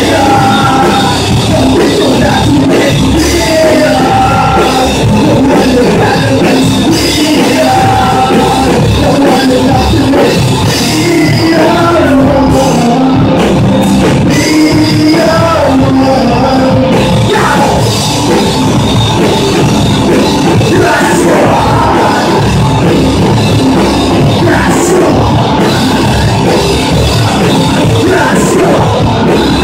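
Rock band playing live and loud: electric guitars over a drum kit.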